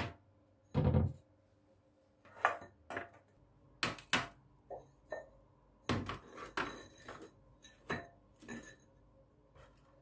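Terracotta bowls being set down one after another on a metal oven tray: a run of short clay-on-metal knocks and scrapes, about a dozen in all.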